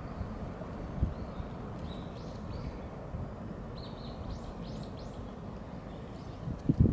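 Outdoor ambience with a steady low rumble, a short thump about a second in, and a small bird giving a few quick high chirps about two seconds in and again between four and five seconds.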